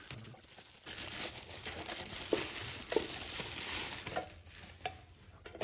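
Bubble wrap and plastic film crinkling and rustling as they are pulled off a tin box, with a few sharp clicks among the rustle.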